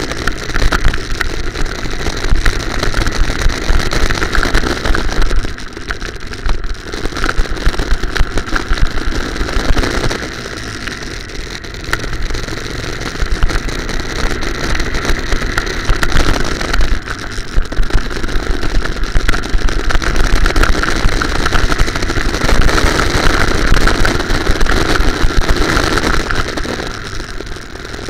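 Go-kart engine running hard on track, its note swelling and dropping away several times as the throttle is opened and lifted through the corners.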